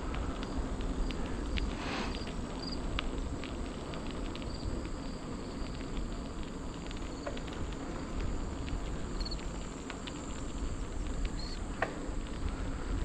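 Outdoor ambience: a steady high insect drone, with a low rumble of wind on the microphone and scattered small ticks and crackles. A few short high chirps sound now and then.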